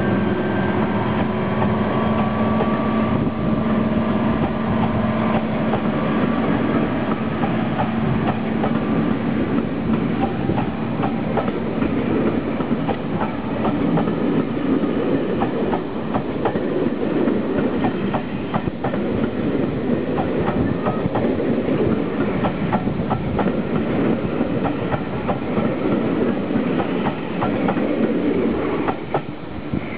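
A Class 55 Deltic locomotive, with its twin Napier Deltic two-stroke diesel engines, pulling away with a steady engine note that fades over the first few seconds, while its coaches roll past close by with a rapid clatter of wheels over rail joints and pointwork. The clatter thins out near the end as the last coach passes.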